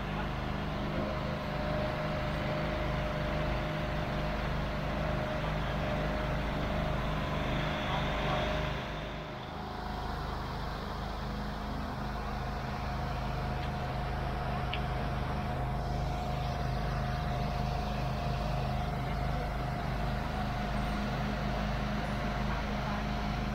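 An engine running steadily at constant speed, a low even drone with a thin steady whine above it. It dips briefly about nine seconds in, then carries on unchanged.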